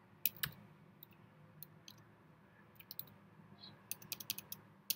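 Computer keyboard keystrokes clicking: a few scattered taps, then a quick run of keystrokes near the end as a command is typed into a terminal.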